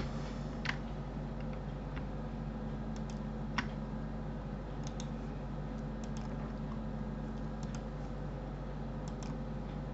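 Scattered clicks of a computer keyboard and mouse, about ten in all, the sharpest about three and a half seconds in, over a steady low hum.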